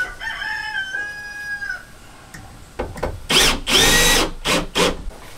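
Cordless drill driving screws into a wooden board in several short bursts, loudest about three to four seconds in. Before that, a steady high whine lasts just under two seconds.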